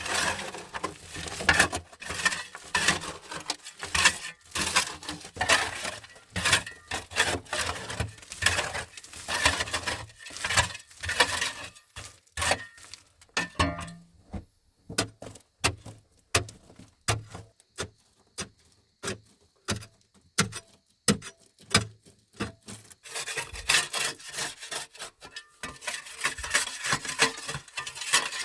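A hand tool rasping on wood in quick, even strokes, about two a second. About halfway through the strokes give way to scattered separate knocks and clicks, then pick up again near the end.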